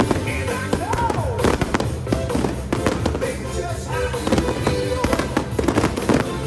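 Fireworks going off in quick, repeated bangs and pops over loud music played for a pyromusical display.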